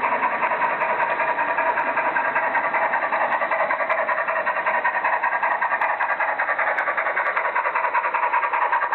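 Märklin model train running on the track, close to the microphone: a steady electric motor whir with rapid clicking from the wheels and running gear.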